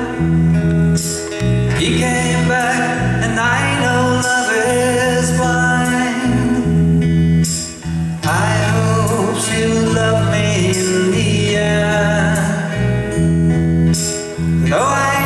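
Live band playing a slow song: a man singing over acoustic guitars, bass guitar, piano and drums.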